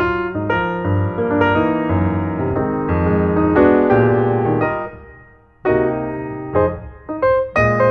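Piano music, notes struck in a flowing melody with chords, briefly fading almost to quiet about five and a half seconds in before new notes begin.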